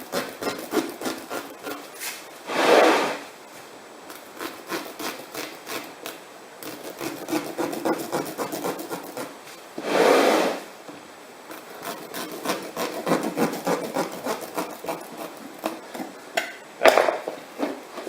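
A kitchen boning knife sawing back and forth through the rubber of a car tyre in quick rasping strokes, with two longer, louder strokes and a sharp knock near the end.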